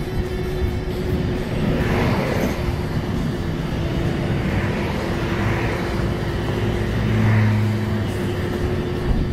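Road vehicle noise with a steady hum, and a vehicle growing louder and passing about seven seconds in.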